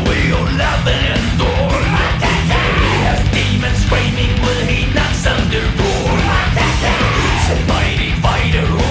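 Loud heavy rock soundtrack music with shouted vocals over a driving beat.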